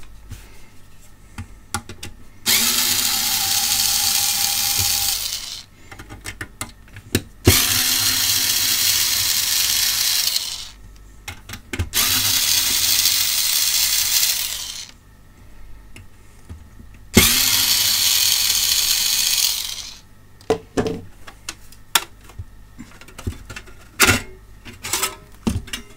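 Electric screwdriver running in four separate runs of about three seconds each, backing out the four screws that hold an ATX power supply's top cover. Small clicks and knocks of screws and the metal casing being handled come between the runs and near the end.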